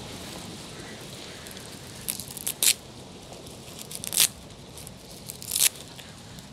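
Frying over a wood-fire stove: a steady low sizzle broken by three short, sharp crackles, the first a quick little cluster.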